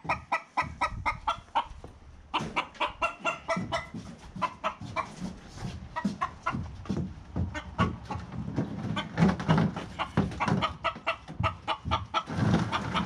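Chickens clucking over and over in quick, short calls inside a cage, with bumps and knocks as the wooden hutch is handled and loaded onto a pickup's bed.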